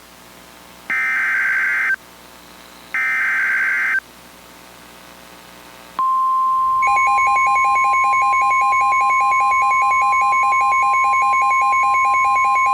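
NOAA Weather Radio alert sequence: the SAME digital header ends with two one-second warbling data bursts, a second apart, marking the start of a new warning. About six seconds in, the 1050 Hz weather alert tone begins and holds steady, and a second later a rapid beeping alarm joins it, pulsing about eight times a second.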